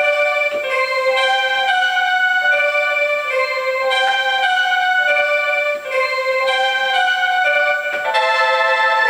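A synth keyboard voice in an electric-piano or organ-like tone, played from a Roland A49 MIDI controller, picks out a melody at about two to three notes a second. The phrase repeats after about four seconds, and fuller chords come in near the end.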